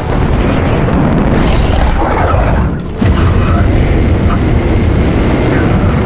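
Loud, deep rumbling roar of a fighter jet's engines, dipping briefly and then coming back suddenly about three seconds in.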